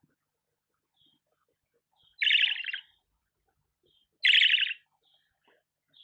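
Budgerigar giving two loud, harsh, rapidly pulsing chattering calls about two seconds apart, with faint short chirps in between.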